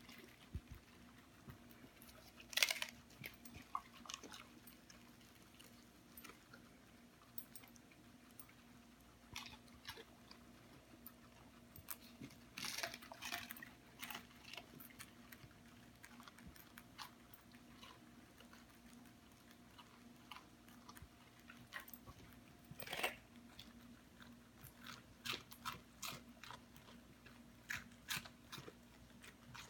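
A dog and guinea pigs chewing salad greens: irregular, crisp crunches and bites of lettuce, with the loudest bites about two and a half seconds in and again a little past twenty-two seconds.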